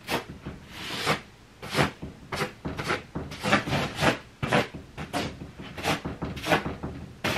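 Fabric of a mattress encasement rustling and swishing in a series of short tugs, about one or two a second, as it is pulled down over a mattress.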